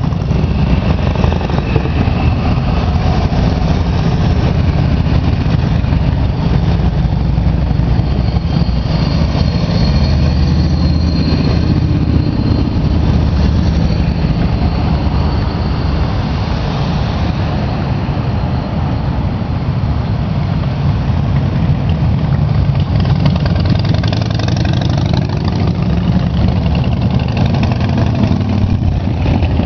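A procession of motorcycles, three-wheeled trikes and a pickup truck towing a trailer passing slowly, a continuous rumble of many engines running together.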